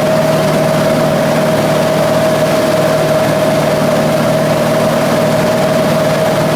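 Engine and propeller of a 1958 Cessna 182 droning steadily in flight, heard from inside the cockpit together with the rush of wind noise.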